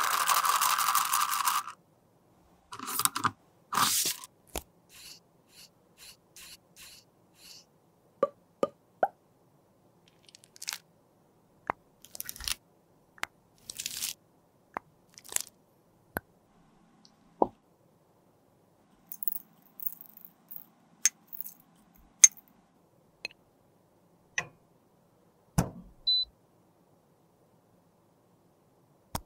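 Plastic lipstick tubes and cases handled on a tabletop: a loud clatter lasting under two seconds at the start, then scattered clicks, taps and short scrapes.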